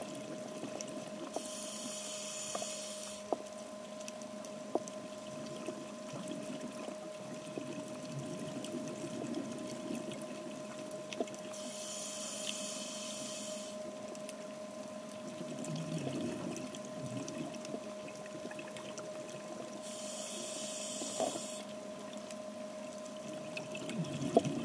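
Scuba regulator breathing heard underwater: three exhalations, each a burst of bubble hiss about two seconds long, roughly eight to nine seconds apart. Under them runs a steady faint hum, with scattered sharp clicks.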